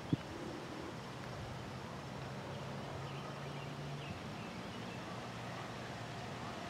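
Faint steady outdoor background noise with a low hum that is strongest for the first few seconds, and a single click right at the start.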